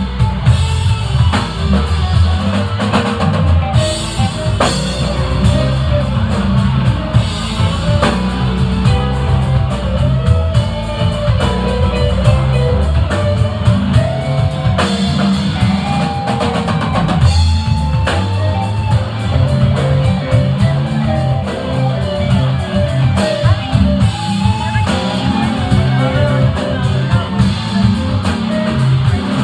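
Live rock band playing loudly: electric guitars over bass and a drum kit, with a lead guitar line running through it.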